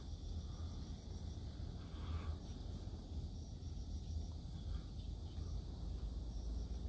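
Insects chirping: a steady high drone with faint short chirps repeating over it, above a low steady rumble.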